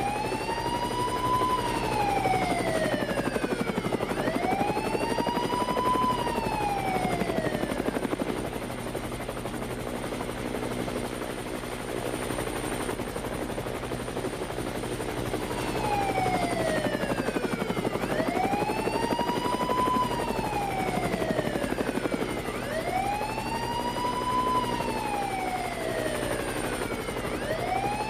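Helicopter rotor chopping steadily under a police siren that wails up and down about every four seconds. The siren drops out for about eight seconds in the middle, then returns.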